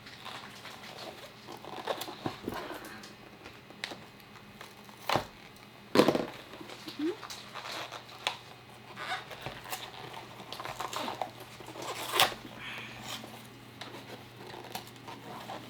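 Trading-card packaging being torn open and handled: cardboard and wrappers crinkling and tearing, with scattered clicks and two sharper knocks about six and twelve seconds in.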